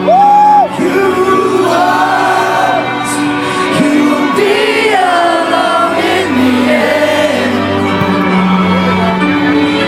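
A live rock band playing loudly through a concert PA, with sung vocals over guitars and drums; a loud held vocal note opens it.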